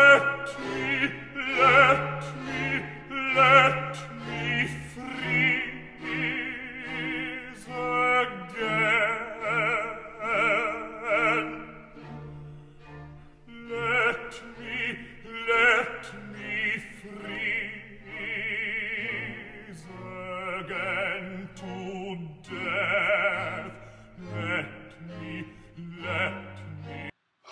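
Operatic singing with orchestral accompaniment: a voice with strong vibrato over sustained strings, stopping abruptly near the end.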